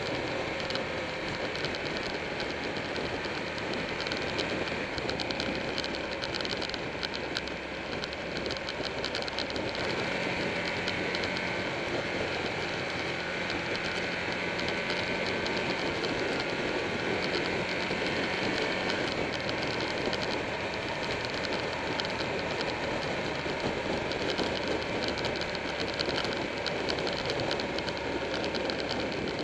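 Buell 1125R's V-twin engine running at road speed through curves, blended with steady wind rush and a fast, continuous rattling; the engine note shifts about ten seconds in.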